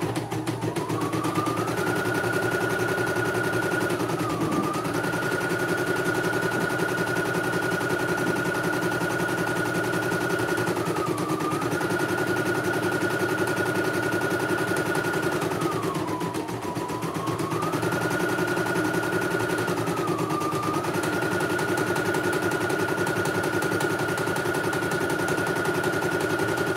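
CNY E900 portable embroidery machine stitching a design at speed: a steady motor whine over the rapid clatter of the needle. The whine drops in pitch and picks up again a few times as the machine briefly slows.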